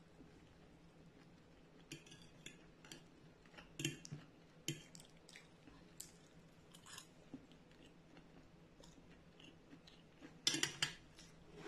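Close-up eating sounds: fried tofu being chewed, with light clicks of a fork against a plate. A louder clatter of the fork on the plate comes about ten and a half seconds in.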